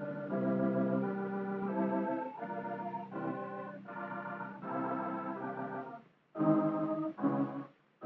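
Background film-score music of sustained organ-like chords that change every second or so, cutting out briefly about six seconds in before two shorter chords.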